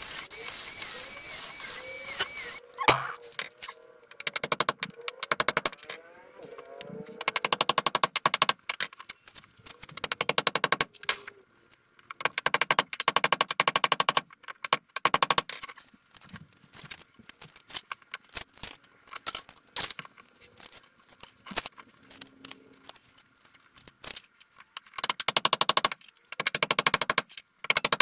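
Cordless drill-driver driving screws into a timber frame, in repeated bursts of a second or two, each a rapid run of clicks, with short pauses between.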